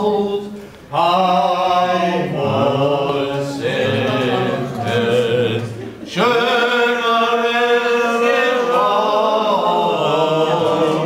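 Tenor singing a song loudly, holding long notes with vibrato and pausing briefly for breath about a second in and again about six seconds in.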